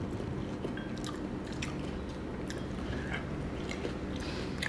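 A person biting and chewing food, with scattered light clicks of chopsticks and tableware over a steady low room hum.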